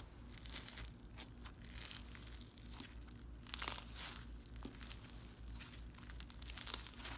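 White-glue floam slime, slime packed with foam beads, being stretched and squished by hand, giving a crunchy crackling of many small irregular pops.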